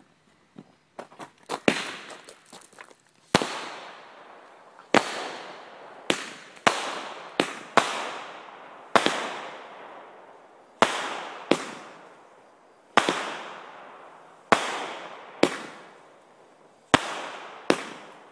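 Consumer aerial fireworks going off: a few small pops, then about fifteen sharp bangs one to two seconds apart, each trailing off over about a second.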